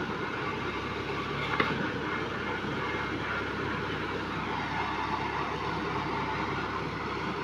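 An engine runs steadily, with one sharp knock about one and a half seconds in.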